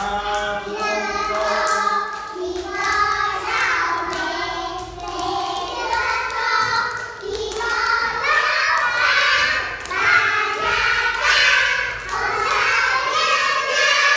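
A group of young children singing a song together, with hand clapping.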